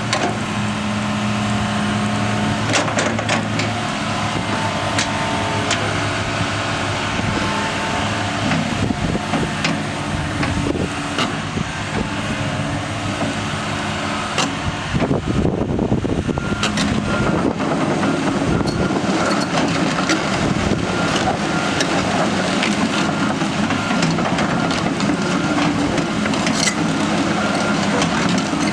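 2018 John Deere 210 LC hydraulic excavator's diesel engine running steadily, with repeated sharp metallic clanks and knocks. From about halfway through, the sound turns busier and noisier.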